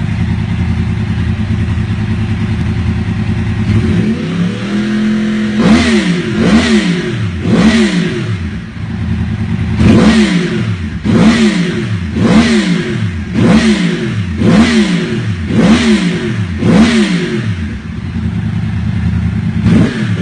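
2010 Yamaha YZF-R1's crossplane-crank inline-four, with its uneven 'big bang' firing order, breathing through an Akrapovic exhaust: it idles, then takes about ten quick throttle blips, each rev rising sharply and falling straight back to idle.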